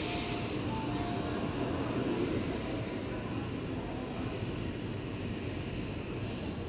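Shinkansen bullet train moving past alongside the platform: a steady rumble of wheels and rushing air, with a higher hiss that fades in the first second.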